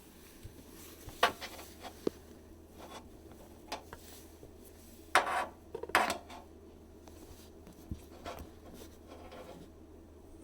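Handling noises: scattered clicks and light knocks, with two louder scraping rubs about five and six seconds in.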